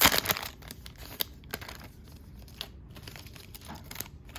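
Foil trading-card pack wrapper being torn open and crinkled, loudest in the first half second, then scattered lighter crinkles.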